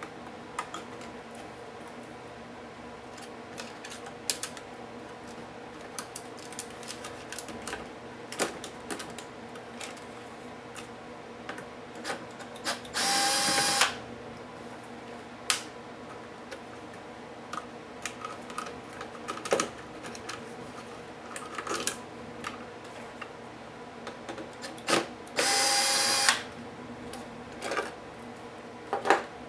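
Clicks and light clatter of small tools and parts being handled, with two short runs of a small electric screwdriver, about a second each, near the middle and again near the end.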